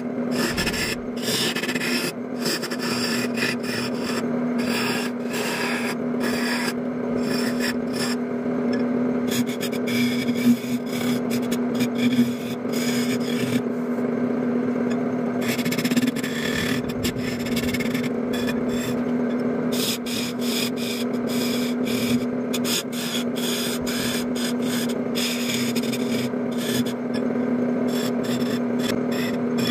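Wood lathe running with a steady electric-motor hum, while a hand-held turning chisel scrapes and cuts the spinning wooden blank in uneven strokes that come and go.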